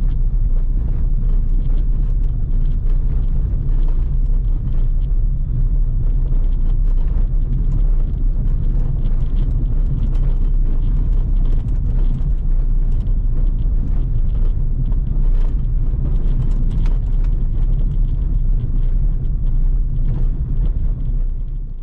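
Car driving over a cobblestone road, heard from inside the cabin: a steady, loud low rumble from the tyres on the setts, with a constant rattle of small knocks on top. It grows quieter near the end.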